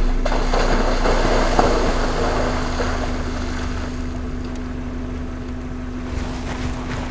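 Vehicle engine idling with a steady low hum. Over the first few seconds an elephant's feet splash through shallow water, fading as it walks away.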